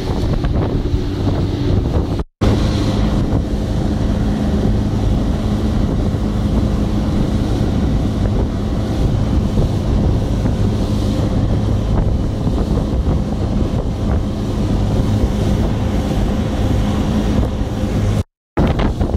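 Alson inflatable boat under way, its outboard motor running with a steady hum, mixed with wind buffeting the microphone and the rush of water. The sound drops out completely twice, briefly, about two seconds in and near the end.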